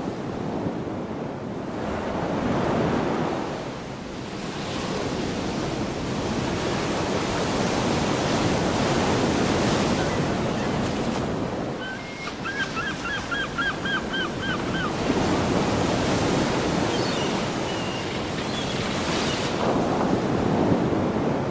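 Sea waves washing onto a shore, swelling and falling back every few seconds. A little past halfway, a bird calls a quick run of about nine short notes.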